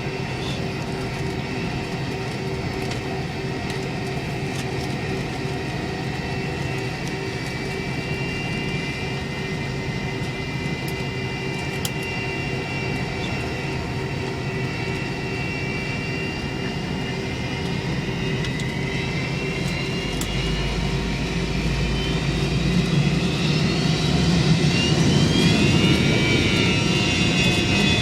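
McDonnell Douglas MD-88's rear-mounted Pratt & Whitney JT8D turbofans heard from inside the cabin, idling with a steady whine and hum. In the last few seconds they grow louder and their whine rises in pitch as they spool up.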